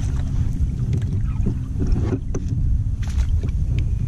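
Wind rumbling on the action camera's microphone, a steady low buffeting, with a few faint clicks over it.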